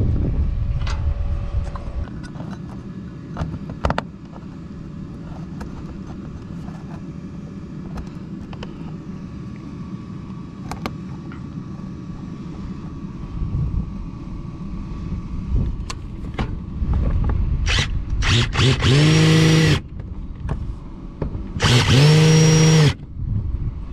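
Cordless drill driving screws to fasten a mounting bracket to the wall, in two short runs of about a second each near the end. Before them there is low handling rustle with a few clicks.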